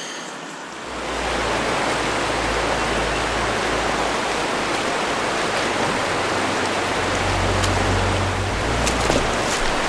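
Steady rush of a river running over shallow riffles, stepping up in loudness about a second in and then holding even.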